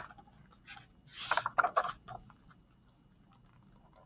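A hardcover picture book being handled and its page turned: a tap, then a few short paper rustles about a second in.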